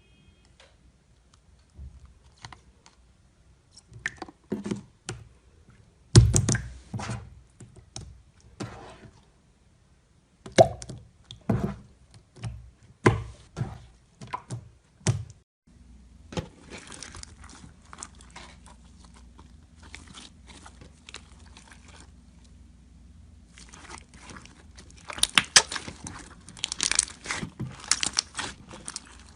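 Slime being pressed and squished by hand, giving clusters of short, crisp crackles and pops, densest near the end.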